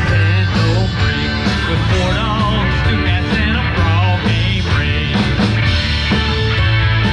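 Live rock band playing with electric guitars and a drum kit over a strong bass line, drum hits keeping a steady beat.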